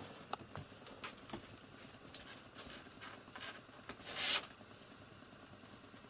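A cat shifting about on a paper-covered box: faint light scratches and clicks, then one brief louder rustling scrape about four seconds in.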